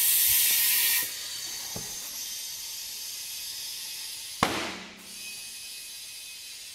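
Compressed air hissing into a tire through an inflator chuck on the valve stem: a loud rush of air for about the first second, then a quieter steady hiss. About four and a half seconds in comes a single sharp bang as a tire bead pops into its seat on the rim.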